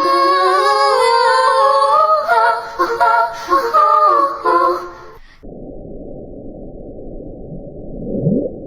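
About five seconds of high, wavering singing that cuts off suddenly, followed by the dull, muffled rushing noise of an underwater hydrophone recording. Near the end a short low moan rises quickly in pitch.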